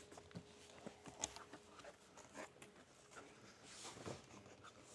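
Faint handling of a large cardboard box lid: a few soft knocks and scrapes as the lid is lifted off and carried, over near-silent room tone with a faint steady hum that stops about halfway.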